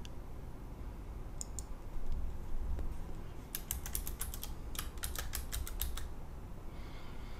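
Computer keyboard typing: a quick run of about a dozen keystrokes from about three and a half seconds in, lasting a couple of seconds while a short word is typed. Two faint clicks come earlier, about a second and a half in.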